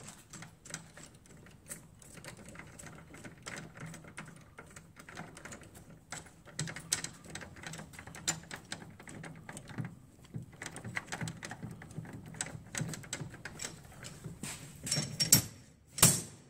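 Slide hammer's screw tip being turned by hand into a vending machine's lock cylinder: a long run of small irregular metal clicks and scrapes. Near the end, two sharp metal clanks about a second apart as the slide hammer's weight is slammed back to pull the lock.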